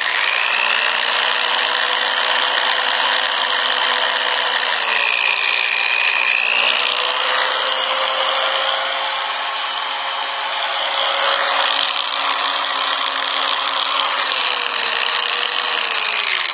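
Corded electric drill running free with the trigger held, a steady motor whine that dips in pitch briefly about five seconds in and again near the end.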